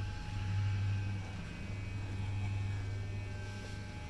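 Corded electric hair clippers buzzing steadily as they cut through long hair at the back of a head.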